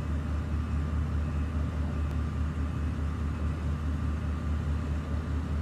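Heavy vehicle engine running steadily, a deep low rumble with a faint whine above it.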